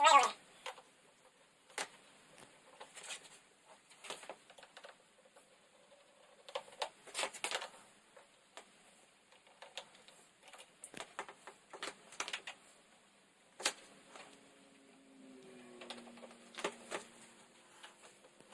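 Irregular small clicks and taps of plastic and metal parts as an LED TV is taken apart, its edge trim and little screws being handled. A short, louder sound with a falling pitch comes at the very start.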